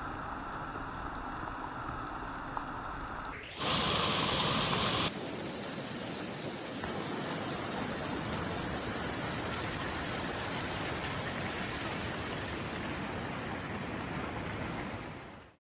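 Steady rushing of a swollen, flooding river. It grows louder and harsher briefly about three and a half seconds in, then settles back to an even rush that cuts off suddenly near the end.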